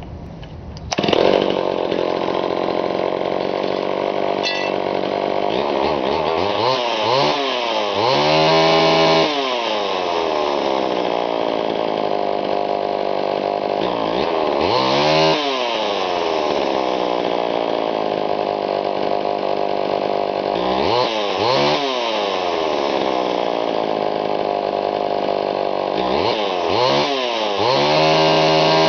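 Homelite XL-101 two-stroke chainsaw engine idling and revved up to high speed several times, each time falling back to idle. Some revs are held high for a second or two. The sound jumps up in loudness about a second in.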